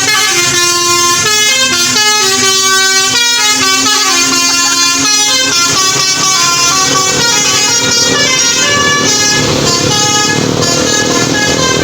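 Tour bus's basuri telolet horn playing a melody of quick stepped notes, held loud and steady. Near the end the notes grow weaker and a rougher rumble rises.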